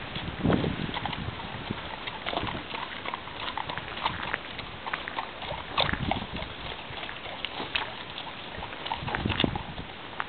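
A horse's hooves giving irregular thuds and clicks over a steady rushing background.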